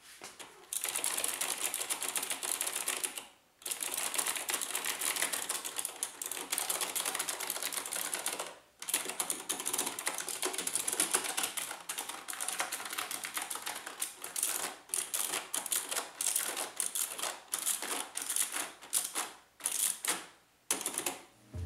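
Fast typing on a mechanical keyboard with round typewriter-style keycaps: a dense run of sharp key clicks. It breaks off briefly about three and a half and nine seconds in, and falls into shorter bursts with pauses near the end.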